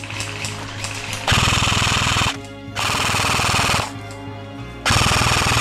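Airsoft electric gun firing three full-auto bursts of about a second each, the last cut off at the end. Background music with steady held tones plays underneath.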